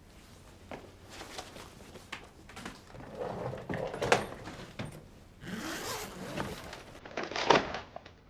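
Handling sounds: a run of short rustles and scrapes, busier in the middle, with a loud rasping scrape near the end.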